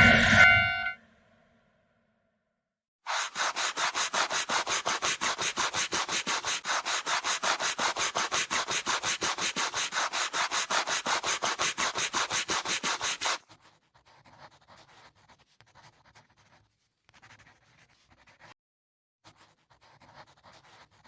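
The passing train and its tone-like sound cut off about a second in. After a short silence comes a rapid, even rubbing or scraping sound effect, about five strokes a second for some ten seconds, which stops suddenly and leaves only faint scattered scratching.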